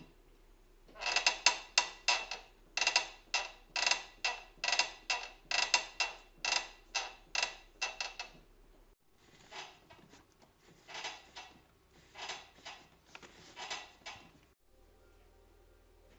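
BMW E39 brake squeaking as the brake pedal is pressed and released over and over: short, high squeaks, a couple a second. The squeaks are loud at first, and after about 9 s they come fainter in small groups.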